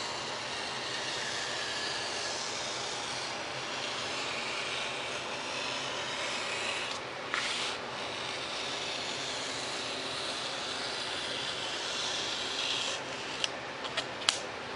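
Hobby knife blade drawn along foam board, a steady scratchy rasp as it cuts a V-notch beside a score line without going all the way through. A few light clicks near the end.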